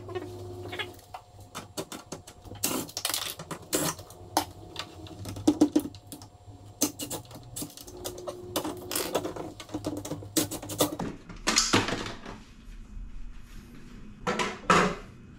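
Clattering, clicking and knocking of tools and panel parts as the back panel of a refrigerator is unscrewed and worked loose, with a short steady whine near the start and again about eight seconds in.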